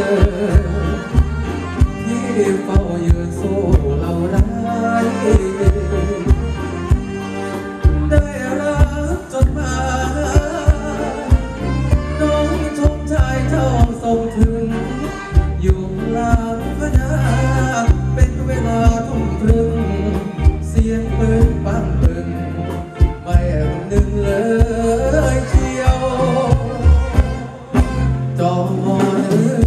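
Live band playing a Thai ramwong dance song through a loud stage PA, with a singer's voice over electric guitars and drums and a steady, heavy beat.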